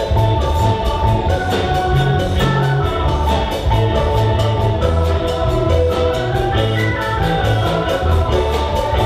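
Loud music with a steady beat, a pulsing bass line and a melody.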